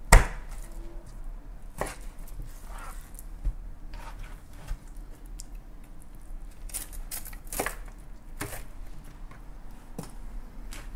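Knife cutting through salmon head and bone on a cutting board, heard as a series of sharp knocks. The loudest comes right at the start, with scattered strikes every second or two after it.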